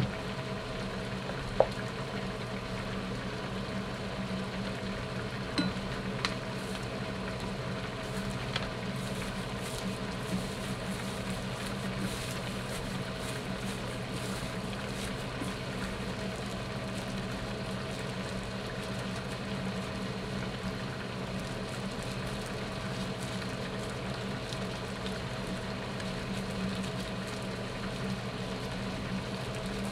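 Steady low mechanical hum of a running appliance, with a few short sharp clicks in the first ten seconds, the loudest about one and a half seconds in.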